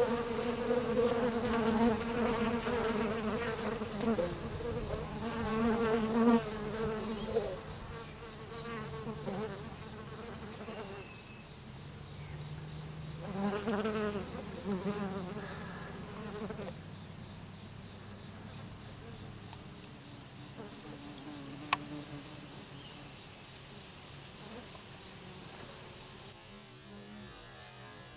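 Honeybees buzzing in flight close by, the wavering wing buzz loudest over the first seven seconds and again about thirteen to sixteen seconds in, then fading. A single sharp click comes about twenty-two seconds in.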